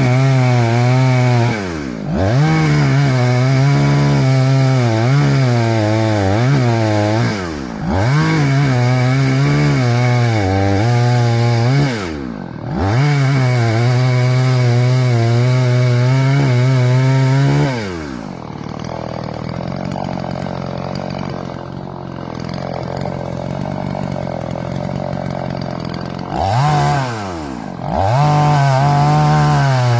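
Two-stroke chainsaw held at full throttle through cuts in small pine, easing off briefly about every five seconds. Past the middle it drops back to idle for several seconds, then revs up again near the end.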